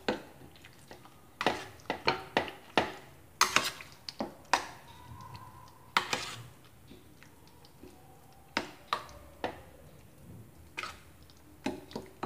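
Metal spoon clinking and scraping against a stainless steel bowl while stirring chicken in a thick yogurt marinade. The sharp clinks come irregularly, in a quick run over the first few seconds and more sparsely after that.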